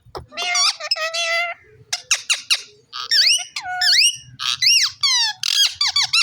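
Pet talking parrot squawking and then giving a run of short arching whistles, each rising and falling in pitch. A harsh call comes first, followed by a few clicks, and the quick whistled notes fill the second half.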